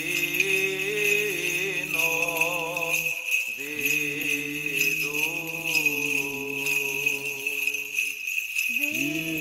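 Byzantine chant: a cantor's voice sings a slow, drawn-out melodic line over a steady held drone (the ison), with short breaks about three seconds in and near the end. A steady high ringing sits above it.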